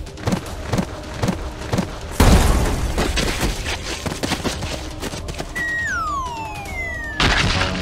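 Cartoon sound effects over background music: a run of thuds, then a loud boom about two seconds in. Near the end comes a whistle sliding steadily down in pitch for a fall, cut off by a burst of noise.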